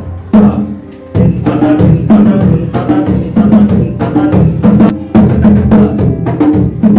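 A set of three congas played by hand in a steady, repeating pattern of strikes, the 'Dhin TaTa Dhin TaTa' beat used to accompany the national anthem. The strikes ease off briefly about a second in, then resume and run on evenly.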